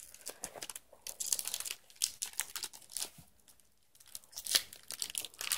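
Foil wrapper of a Magic: The Gathering booster pack crinkling and tearing as it is pulled open, in irregular bursts of crackle with short pauses between.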